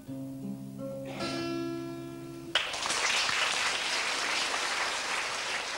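Acoustic guitar ringing out the last chords of a song, then about two and a half seconds in an audience breaks into steady applause.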